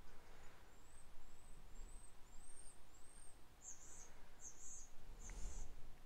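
Faint, high, thin whistles from a European starling, five in a row, followed by three short raspy calls. A soft low bump comes near the end.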